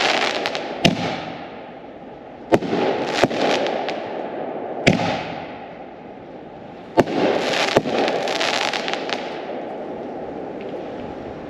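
Consumer canister firework shells bursting in the air: sharp bangs, twice in quick pairs under a second apart as double-break shells go off, each followed by a few seconds of fading hiss.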